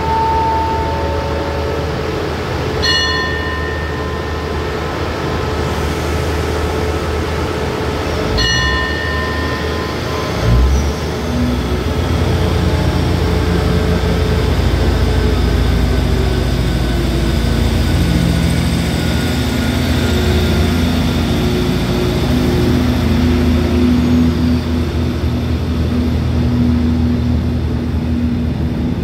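Diesel multiple-unit express train idling at the platform, with two short high-pitched signal tones about 3 and 8 seconds in. About ten seconds in, its diesel engines rev up into a louder, steady rumble as the train pulls out of the station.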